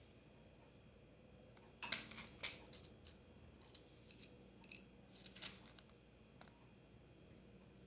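Faint small clicks and scrapes of tools and parts being handled while changing a Swatch watch battery. They come in a loose cluster from about two seconds in until about five and a half seconds.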